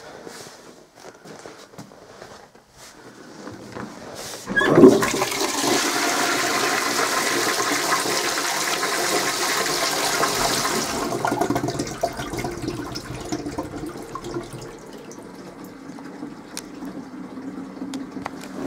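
1990s American Standard Braemar toilet flushing: a sudden rush of water starts about four and a half seconds in and stays loud for about six seconds, then drops to a quieter, steady run of water as the bowl refills.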